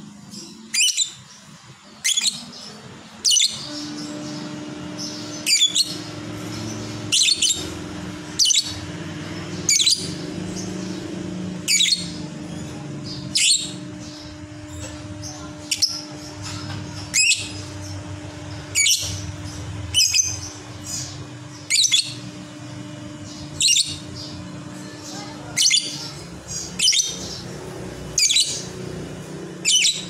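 Fischer's lovebird giving short, sharp, high chirps over and over, about one every second and a half. A steady low hum runs underneath for most of the time.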